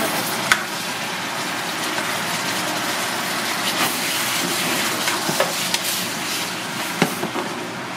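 Hagfish and vegetables sizzling steadily as they are stir-fried in sauce in a frying pan, with a few sharp knocks of the ladle against the pan; the loudest knock comes about seven seconds in.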